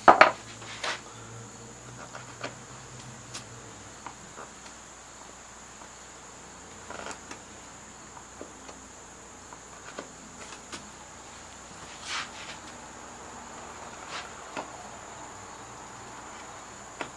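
Crickets trilling steadily and high-pitched in the background, with a single sharp knock right at the start, the loudest sound. Scattered light clicks and scrapes of a small hand tool on a cedar carving follow.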